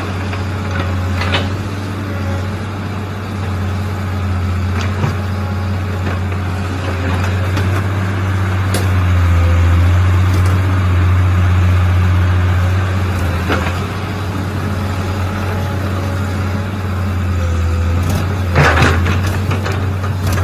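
Mini excavator engine running steadily under work, with a few short knocks and scrapes from the digging gear, the loudest cluster near the end.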